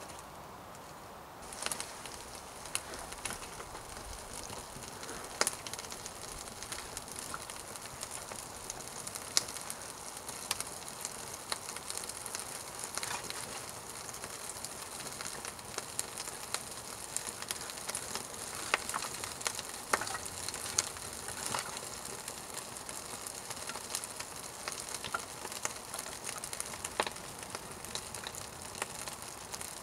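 A small fire of birch bark and wood shavings catching about a second and a half in, then burning with a steady hiss and irregular crackles and pops.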